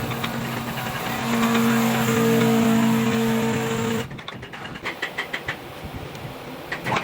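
A woodworking machine's motor running with a steady hum. About four seconds in, the sound cuts abruptly to a quieter machine sound with a regular clicking, about three or four clicks a second.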